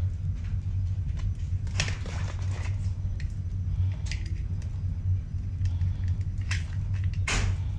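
Rustling and light clicks of small toiletry items being handled and lifted out of a zippered fabric pouch, a few separate bursts with the largest near the end, over a steady low hum.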